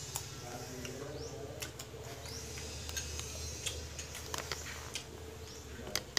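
Scattered small clicks and smacks of someone eating sour tamarind: lips and tongue smacking on the sour pulp, and a metal spoon clicking against a small ceramic bowl.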